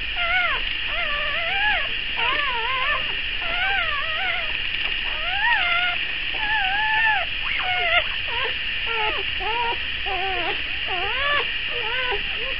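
Newborn Dalmatian puppies, a day old, squeaking and whimpering as they jostle at the teats to nurse: a constant string of short, high, wavering calls, often overlapping, a couple each second.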